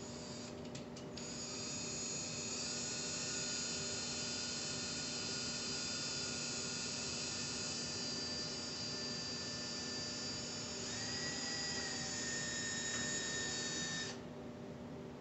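Handheld power drill running slowly as it bores through nested metal conduit pipes: a steady high whine that starts about a second in and stops about a second before the end, its pitch shifting a little twice.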